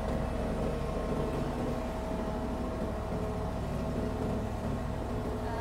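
Kubota D1703 three-cylinder diesel engine of a mini excavator running steadily at idle, a low even hum with a faint steady whine above it.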